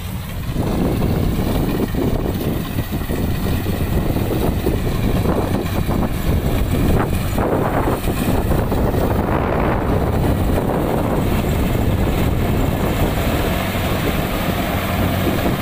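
Wind buffeting the microphone, over the steady drone of rice combine harvester engines working in the field.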